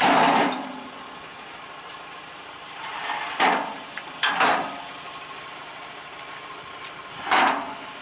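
Steel loading ramps clanking and scraping against a truck's rear bed as they are set in place: four short, loud metallic crashes, the first right at the start, two close together midway and one near the end. An engine runs steadily underneath.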